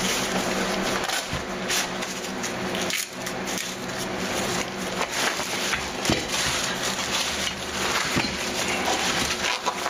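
A black nylon carrying bag being handled and opened by hand, its fabric rustling and crinkling without a break, with scattered small clicks.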